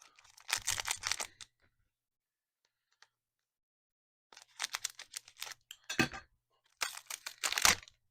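Trading-card pack wrapper crinkling and tearing as the pack is opened and the cards are handled. It comes in three short spells of quick crackly rustling: one near the start, then two close together in the second half.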